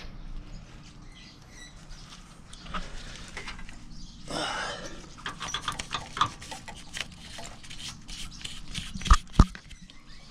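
Scratchy rustling and scattered small clicks from a hand and a handheld camera moving among an engine bay's wiring harness and parts. There is a rushing burst about four seconds in and two sharp knocks near the end.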